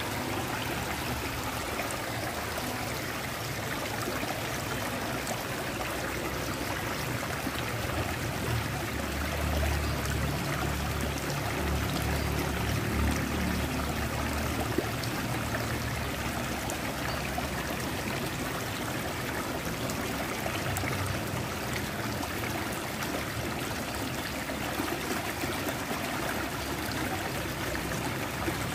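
Water splashing out of a drain pipe and running in a small concrete ditch: a steady rush and trickle. A low rumble rises for a few seconds near the middle.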